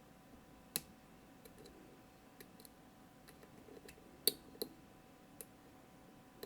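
Scattered small metallic clicks and ticks of a lock pick and tension tool working the pins of a Mottura CP6 dimple-and-rotor lock, irregular and a few seconds apart, the sharpest a little after four seconds in.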